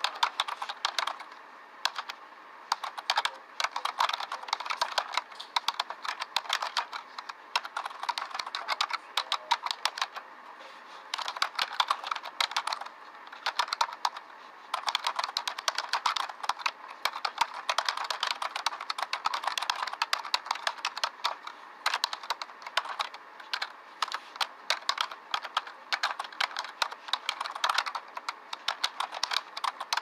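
Typing on a computer keyboard: fast, irregular key clicks in runs with a few short pauses.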